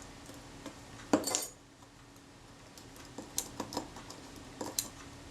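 Small metal hand tools clinking and clicking against the parts of a camera shutter while a bent detent spring is re-adjusted: a louder clink and scrape about a second in, then a run of light, separate clicks.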